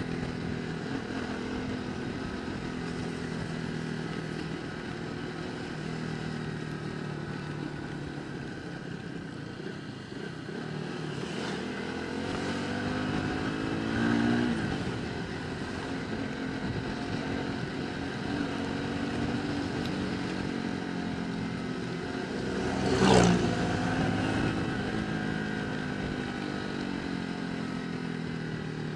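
Motorcycle engine running on the road, its pitch rising and falling as the revs change. Another vehicle passes close about two-thirds of the way through, the loudest moment, and there is a smaller swell about halfway.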